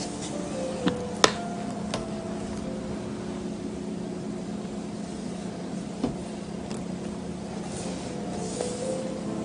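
Stiff photo-album pages being handled and turned: a few sharp clicks and knocks, the loudest about a second in, over a steady low hum, with a soft rustle near the end.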